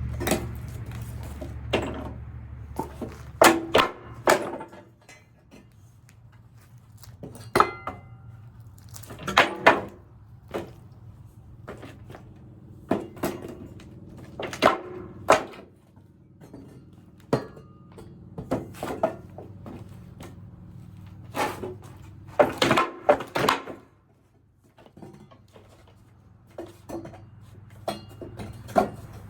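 Pallet boards being pried off with a homemade steel pallet-busting bar: irregular wooden knocks and metallic clanks, with a few short squeaks as the nails pull loose.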